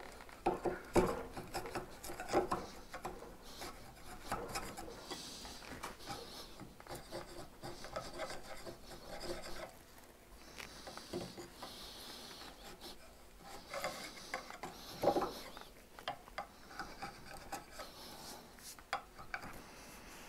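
A hand tool rasping and scraping on wood in irregular stretches, with a few sharp knocks in the first few seconds.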